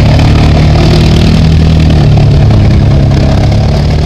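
ATV engine running loud and steady, easing off slightly near the end.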